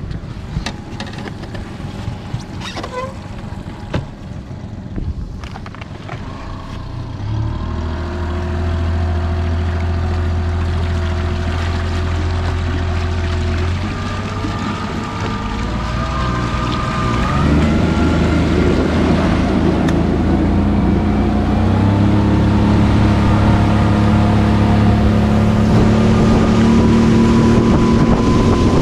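Outboard motor on a fishing boat running, with a few light knocks before it comes up about seven seconds in. It is then throttled up in steps, its pitch and loudness rising twice more.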